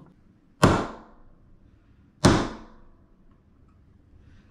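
Two sharp metal-on-metal hammer blows about a second and a half apart, each with a short ringing tail: a claw hammer striking a steel punch set against a rust-seized 1/8-inch shear pin in the kayak drive's propeller shaft, driving the pin out.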